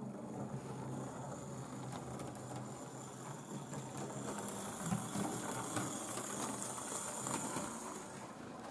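Hornby OO gauge 0-4-0 model tank locomotive running over points: its small electric motor and gears whir steadily, with a few faint clicks from the wheels on the track.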